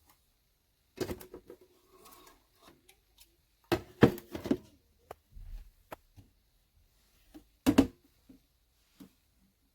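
Several knocks and clunks of something being handled: a cluster about a second in, the loudest cluster around four seconds in, another near eight seconds, with lighter clicks in between.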